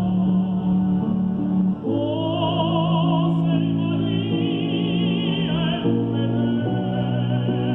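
Music: slow sustained chords, joined about two seconds in by a singing voice held on long notes with wide vibrato, in an operatic style.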